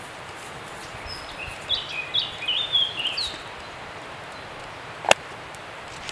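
Outdoor ambience with a steady hiss, a bird calling in a quick run of short chirps from about one to three seconds in, and a single sharp click or knock near the end, the loudest sound.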